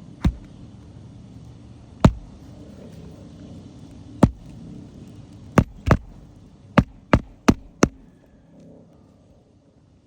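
Roofing hammer nailing down shingles: nine sharp strikes, a couple of seconds apart at first, then in quick succession from about five and a half seconds in.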